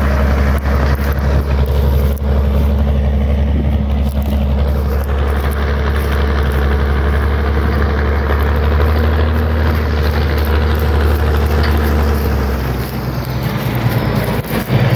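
Zetor tractor's diesel engine running steadily under load as it pulls a four-furrow reversible plough through the soil, a deep continuous drone; the low drone weakens briefly near the end.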